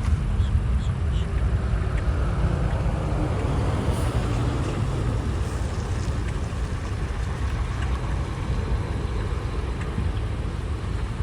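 Boeing Business Jet's engines during the landing, a steady rumble that slowly fades.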